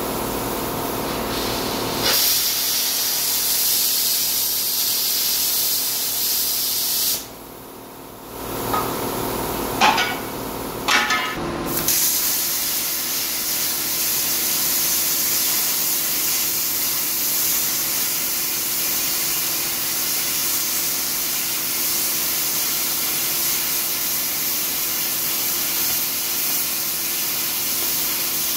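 Eastwood Versa Cut 60-amp plasma cutter cutting through a rusty steel truck frame: a steady, loud hiss of air and arc. It breaks once for a short quiet gap and a few pops about a third of the way in, then runs on.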